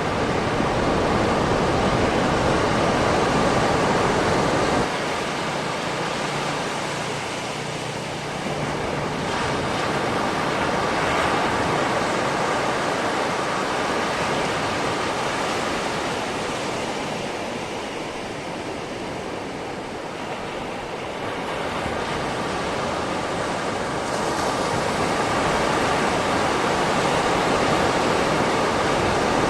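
Calm sea surf washing on a beach: a continuous rush of breaking and receding waves that slowly swells and ebbs, dropping suddenly about five seconds in and rising again in the last third.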